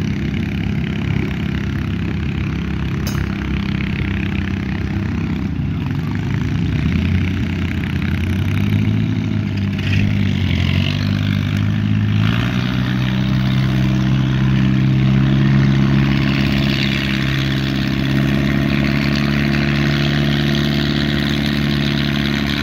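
Antique farm tractor engines running under heavy load while pulling a weight-transfer sled. The engine note shifts in pitch for a few seconds about a third of the way in, then holds steady.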